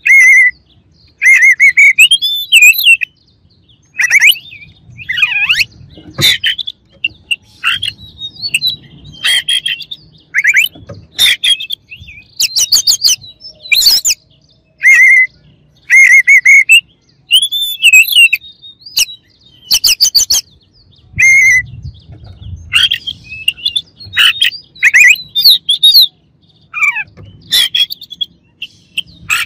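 Oriental magpie-robin (kacer) singing loudly in a cage. It gives a varied run of short phrases with brief pauses between them: rising and falling whistled notes mixed with fast clicking, rattling trills.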